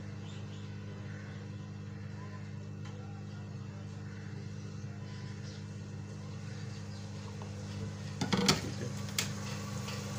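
Hot air rework gun blowing steadily with a low hum while desoldering a small regulator IC from a receiver circuit board. A couple of sharp knocks come about eight seconds in.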